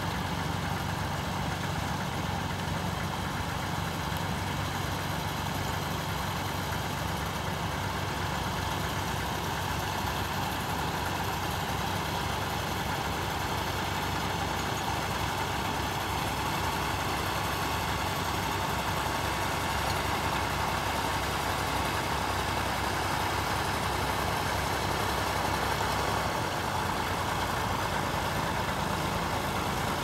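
Vintage tractor engines running steadily under load while ploughing, growing slightly louder in the second half as one draws closer.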